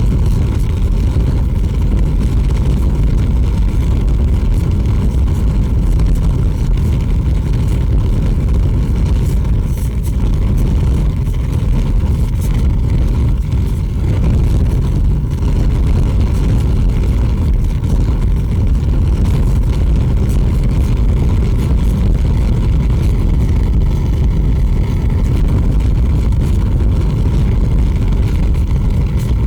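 Large fire burning steadily, a loud low rumbling noise with faint scattered crackles.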